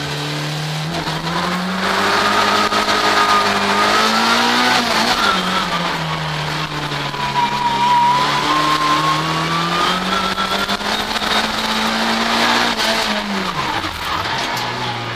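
Race car's engine heard from inside the cabin under hard acceleration through the gears: the revs climb, drop at an upshift about five seconds in, climb again for several seconds, then fall away sharply near the end as the car slows for a turn. A high whine rises and falls along with it.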